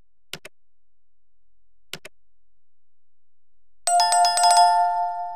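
Two sharp mouse-click sound effects about a second and a half apart, then a louder notification-bell sound effect that rings with rapid strikes for about a second near the end and trails off into a held tone.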